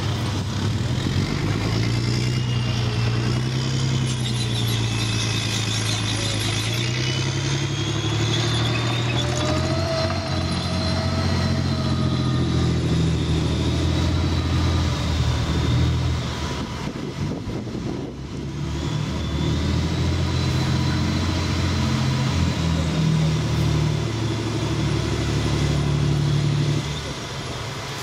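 Challenger armoured repair and recovery vehicle driving, its 26-litre V12 diesel engine running under load with the engine note rising and falling, and a high whine rising and falling above it. The sound eases briefly past the middle and drops near the end.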